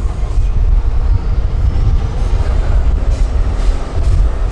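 Tatra 8x8 trial truck's diesel engine working under load as the truck crawls over rough ground, a deep steady rumble.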